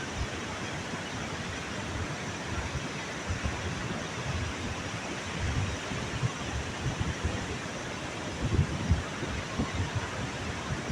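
Sea surf washing in a steady hiss, with wind buffeting the microphone in low gusts that grow stronger near the end.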